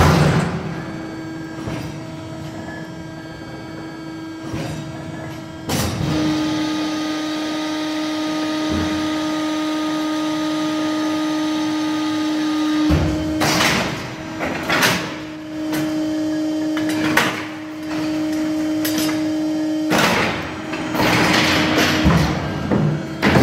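Welger SB 3000 baler running: a steady machine hum, broken in the second half by several bursts of clattering and knocking from its mechanism.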